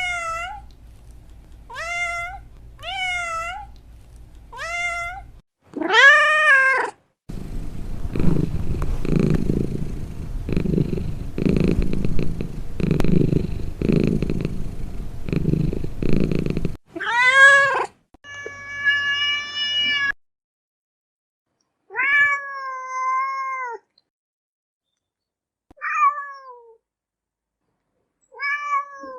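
Domestic cats meowing: a series of separate meows, some short and quick, others longer and drawn out, each rising and then falling in pitch. In the middle comes a stretch of low rumbling that pulses about once a second.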